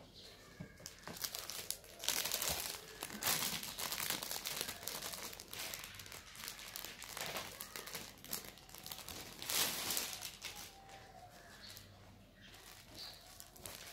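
Clear plastic packaging crinkling and rustling as hands unwrap a folded silk saree, in irregular bursts, loudest about two seconds in and again near ten seconds.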